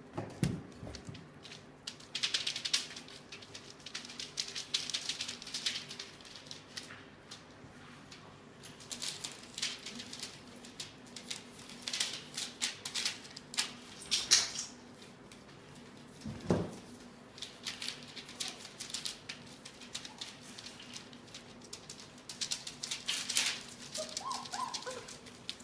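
Five-week-old Australian Labradoodle puppies moving about and playing: scratchy rustling and clicking in spells, a couple of dull knocks, and a few small high squeaks near the end.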